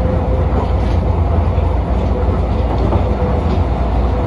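Steady running noise heard inside a Tokyo Monorail car at speed: a deep, even rumble from the rubber-tyred train on its guideway, with a faint steady whine that fades in and out.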